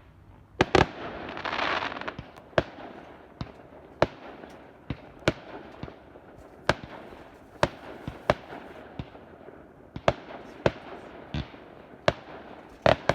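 Fireworks display: a string of sharp bangs at irregular intervals, roughly one or two a second, with a stretch of crackling about a second in.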